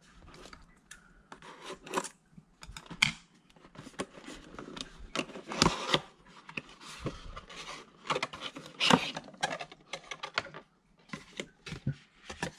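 A small paperboard box being opened and unfolded by hand: flaps pulled open, with irregular scraping, rubbing and sharp crackles of the card. The loudest strokes come about halfway through and again about nine seconds in.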